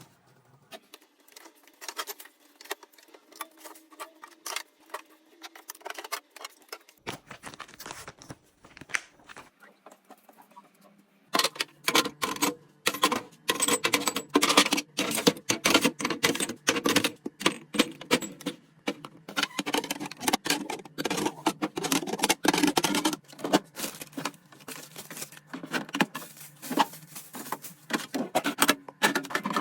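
Rapid clicking, tapping and clattering of food containers and packages being handled, set down and moved while a refrigerator is organized. Sparse and quieter at first, then busier and louder from about a third of the way in.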